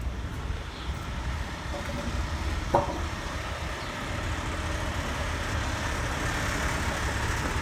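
Heavy truck's diesel engine idling, a steady low rumble, with a sharp click about three seconds in and a hiss growing louder in the second half.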